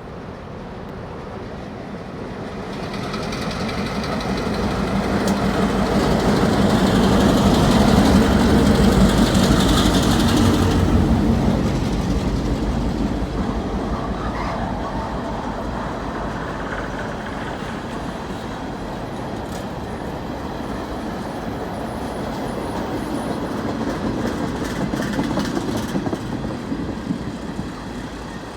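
A CN diesel train passing. The locomotive's engine and rail noise build to a peak about eight to ten seconds in. Then the cars roll by with a steady clatter of wheels on the rails, swelling again near the end.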